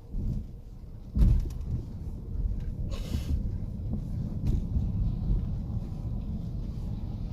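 Low rumble of a car driving, heard inside the cabin, with a loud thump about a second in and a short hiss about three seconds in.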